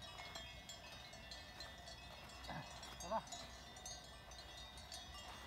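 Faint, continual tinkling of many sheep bells from a grazing flock, with one short bleat about three seconds in.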